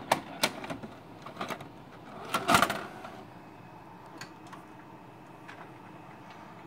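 A VHS cassette pushed into a VCR: a few clicks as the tape goes into the slot, then the loading mechanism whirs and clunks about two and a half seconds in as the machine draws the tape in and starts to play. A few faint ticks follow.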